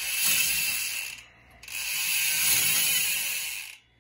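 Industry 9 Torch rear hub's six-pawl freehub buzzing as the wheel freewheels: a fast, high-pitched ratcheting buzz in two runs, with a short break about a second in.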